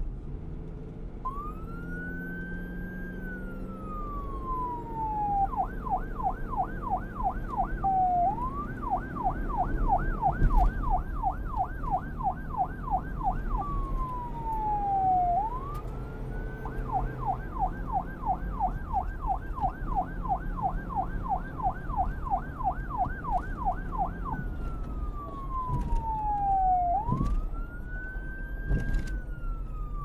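Police siren switching between a slow wail, which rises quickly and then falls slowly, and a fast yelp of about three sweeps a second, over a low rumble.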